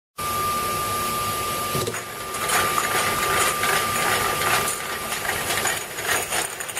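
Bottle air-cleaning machine running: a steady mechanical hum with a thin high whine, and from about two seconds in, repeated short hisses of air at an irregular few per second.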